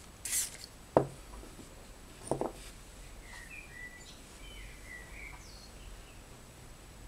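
A short aerosol hairspray hiss at the start, then two sharp clicks about one and two and a half seconds in. Faint bird chirps follow.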